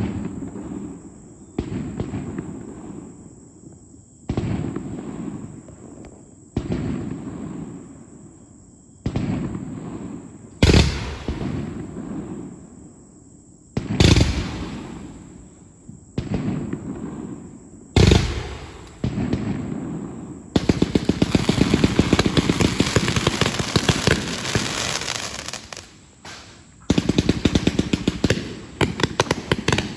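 A 138-shot firework compound cake firing. Single shots come about every two seconds, each fading away, with a few louder bangs. Then a dense rapid-fire barrage of shots runs for several seconds, breaks briefly, and a second quick run follows near the end.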